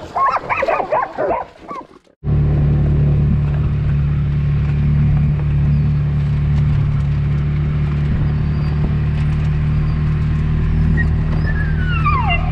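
Dogs barking and yelping for the first two seconds, then a sudden cut to a vehicle engine running steadily as it drives along a dirt field track. Near the end a short tone falls in pitch.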